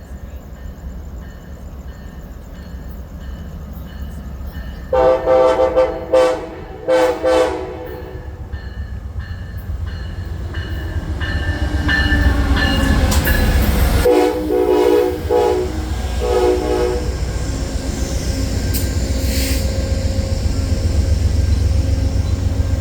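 Amtrak passenger train's locomotive horn sounding several short blasts about five seconds in and again about fourteen seconds in, each a chord of several notes. Underneath, the low rumble of the diesel locomotive builds as the train comes into the station.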